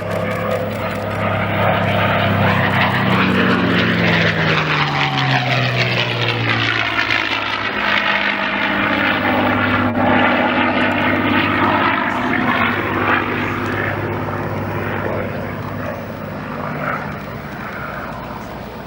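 Propeller-driven piston-engine warbird making a low fly-by. The engine's pitch drops as it passes, and it is loudest through the middle before slowly fading away.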